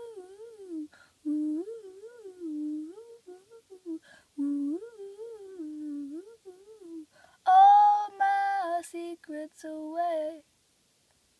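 A boy humming a wordless tune in short wavering phrases; about seven and a half seconds in, he jumps to louder, higher notes, then stops shortly before the end.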